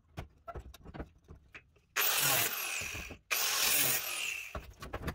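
Light knocks and clicks of metal work, then two loud bursts of a hissing shop tool, each a little over a second long and starting and stopping sharply.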